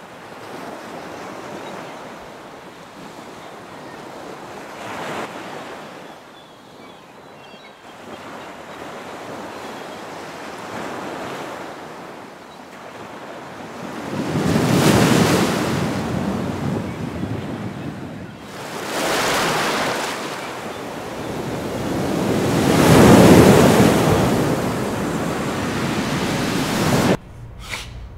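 Ocean surf breaking on a rocky shore, coming in as repeated swelling surges every few seconds. The surf cuts off abruptly about a second before the end.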